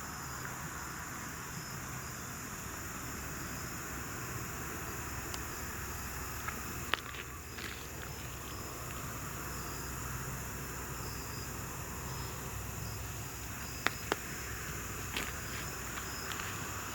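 Insects trilling steadily at a high pitch, with a second, pulsing insect call a little lower, and a few sharp clicks about seven and fourteen seconds in.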